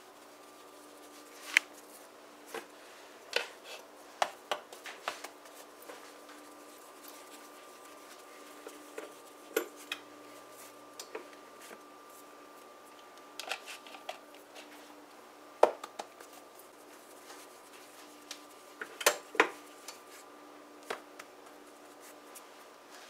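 Hands patting, shaping and pressing small balls of cassava roti dough on a floured countertop: scattered soft taps and knocks at irregular moments, over a faint steady hum.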